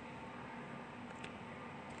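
Faint steady sizzle of sliced onions and ginger-garlic paste frying in ghee in an aluminium pot, with a couple of light clicks from a wooden spoon stirring.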